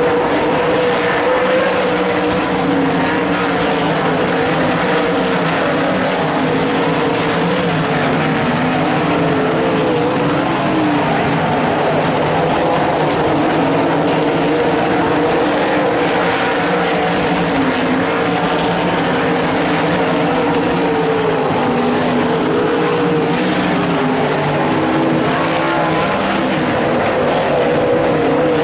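A field of limited sprintcars racing on a dirt oval, several V8 engines running hard at once. Their overlapping engine notes rise and fall as the cars go through the turns.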